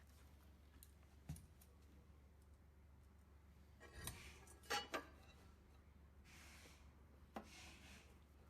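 Faint clicks and small knocks over a low steady hum: one click about a second in, three sharper knocks in quick succession around four to five seconds, and another click near the end.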